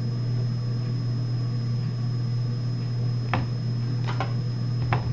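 Steady low hum with a thin high tone over it, and three or four light clicks in the second half as Pokémon trading cards are handled.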